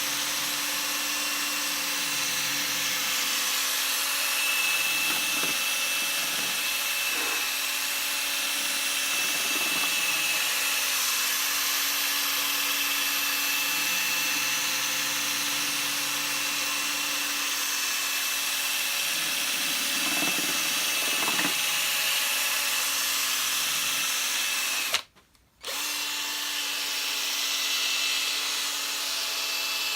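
Electric polishing tool running steadily with a whine, buffing polish into the plastic body of a vacuum cleaner. The sound cuts out abruptly for about half a second near the end, then resumes.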